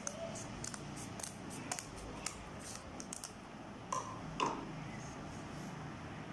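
Scissors snipping through the ends of rolled newspaper tubes: a quick run of crisp snips, about three a second, for the first three seconds, followed by two louder clacks on the tabletop.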